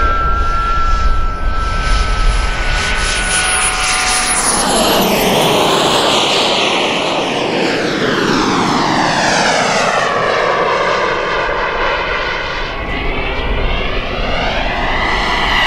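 Turbine engine of an EA BDX radio-controlled jet in flight: a steady high whine at first, then a rushing jet roar that swells about five seconds in as the jet passes low and banks, with a whooshing sweep up and down in pitch as it moves past and climbs away.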